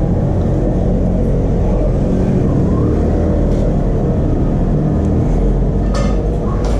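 Steady low background rumble, with two short clinks of a metal spoon against a ceramic bowl near the end.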